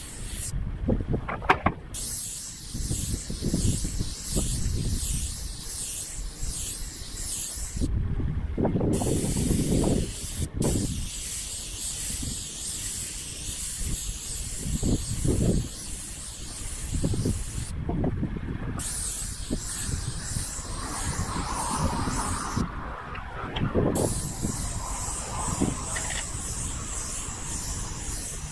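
Airless paint spray gun hissing as it sprays steel primer undercoat onto a corrugated steel roof. The hiss stops and restarts about four times as the trigger is released between passes, with irregular low rumbles underneath.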